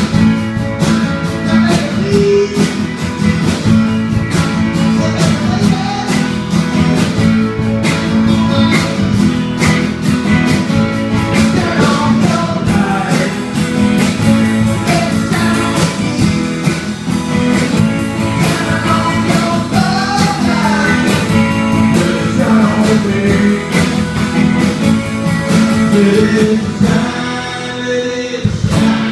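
Two electric guitars played together through amplifiers, a single-cut Les Paul-style and a Stratocaster-style, chords under a bending melodic lead line.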